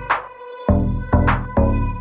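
Electronic background music with a steady beat of deep bass notes and a rising swish accent.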